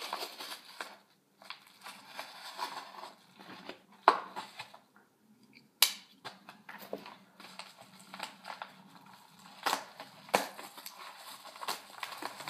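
A knife slitting open a mailer envelope, and the envelope's paper rustling and crinkling as it is torn and handled, with a few sharp clicks and knocks, the sharpest about four and six seconds in.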